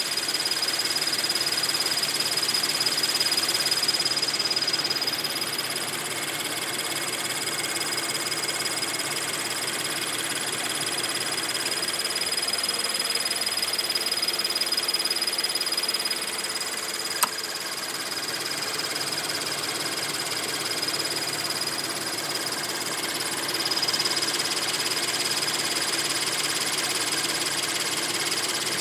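Scion FR-S's 2.0-litre flat-four engine running steadily under the hood, with a persistent chirping noise over it that the owner finds annoying. There is one sharp click a little past the middle.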